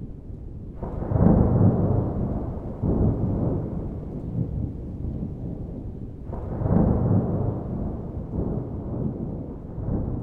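Rolling thunder: a heavy clap about a second in that rumbles on, then a second clap a little past the middle, with further swells of rumble after each.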